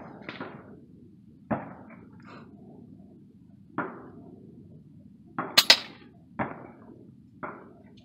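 Air rifle shots going off along the firing line: sharp single reports at irregular intervals, with a louder quick group of three about five and a half seconds in.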